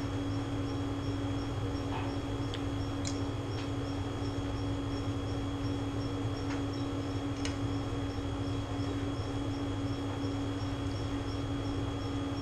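Steady hum of a running room air conditioner, with a faint high chirp repeating about two to three times a second and a few soft clicks of eating at the table.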